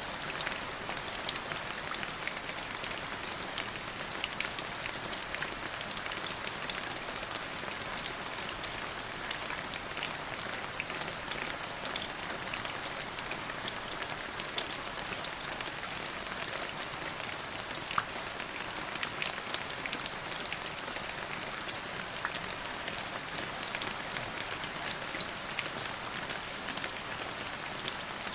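Steady rain falling: an even hiss of rain with many fine, scattered drop ticks.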